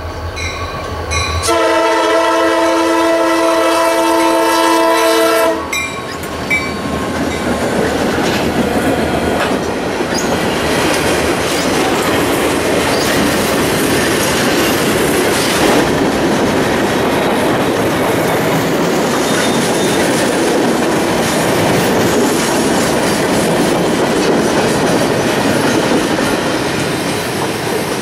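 Diesel locomotive air horn sounding, ending in one long loud blast that cuts off about five seconds in. Then the cars of a freight train roll past close by, wheels clattering on the rails in a steady loud rush.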